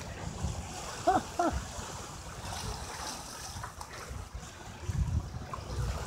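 Wind buffeting the microphone in uneven gusts, heaviest near the end, with two short pitched calls in quick succession about a second in.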